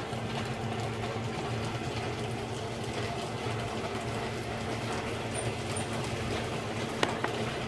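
Steady hiss of rain falling over a steady low electrical hum. A couple of sharp ticks come near the end.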